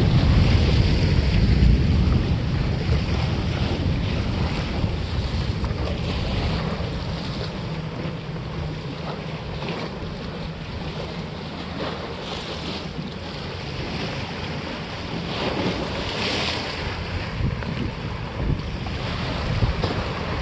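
Sea water washing against a rock breakwater, with wind buffeting the microphone; the wind rumble is strongest in the first couple of seconds and then eases.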